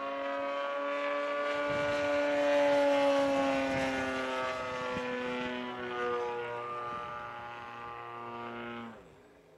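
The AGM-30 30 cc single-cylinder two-stroke gasoline engine of a Graupner Extra 300 RC plane, run through a Pefa four-chamber muffler on its break-in flight, buzzing at high throttle as the plane flies overhead. The steady engine note swells in, is loudest about three seconds in, sags slightly in pitch, then drops off sharply near the end.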